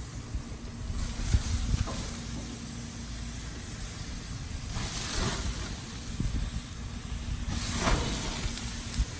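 Gas grill running on high, with water-soaked corn husks hissing and sizzling on the grate over a steady low rumble. The hiss swells twice, about five and eight seconds in.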